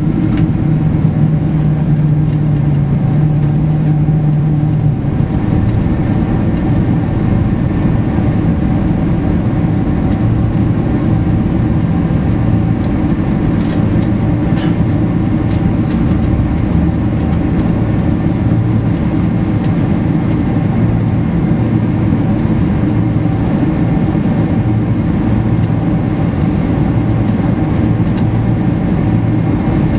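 Cabin noise inside a Boeing 747-400 during takeoff and initial climb: a steady loud roar of the four turbofan engines at high power with a low hum. The hum shifts to a lower, different pitch about five seconds in.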